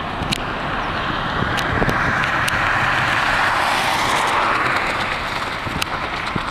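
Boeing 747-400's four jet engines at take-off power during the take-off roll, heard from a distance as a steady rushing roar that swells in the middle and eases slightly as the airliner rotates.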